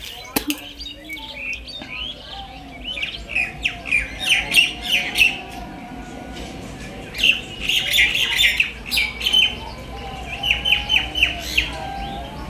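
Small birds chirping in quick repeated bouts, high and sharp, loudest near the middle and again near the end, after a short sharp noise right at the start.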